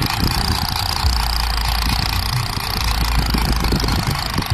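Wind rumbling on the microphone over a steady, even hiss of outdoor noise, with irregular low buffeting thumps.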